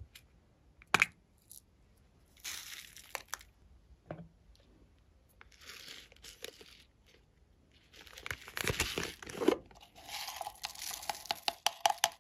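Small plastic novelty containers handled and opened over a slime tray, with a sharp click about a second in and several short bursts of rustling. A longer crackling stretch full of small clicks comes near the end as the contents are tipped out onto the tray.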